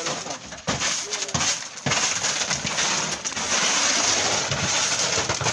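Loose stone pieces knocking a few times, then a steady scraping hiss as the truck bed is brushed clear of stone chips and grit.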